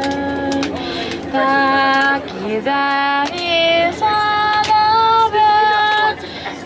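Music with a high singing voice holding long, steady notes that step from pitch to pitch.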